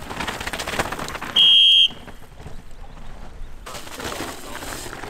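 Downhill mountain bikes running over a rough dirt and rock track: tyres crunching on loose ground and the bikes clattering over bumps. About a second and a half in, a loud, high, steady tone sounds for about half a second.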